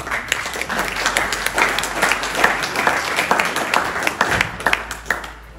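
Audience applauding, dying away after about five seconds.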